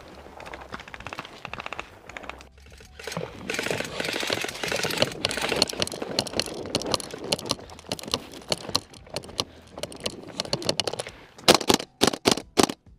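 Airsoft guns firing: fast runs of sharp clicks in full-auto bursts, then several louder single cracks near the end.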